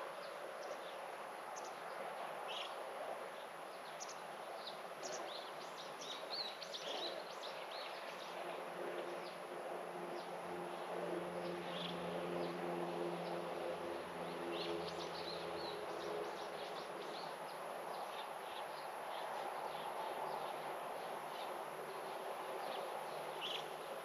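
Outdoor garden ambience: small birds chirping on and off over a steady hiss, with a low buzzing drone for several seconds in the middle.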